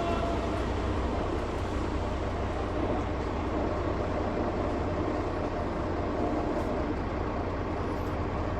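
A vehicle running steadily: an even low rumble with a hiss over it.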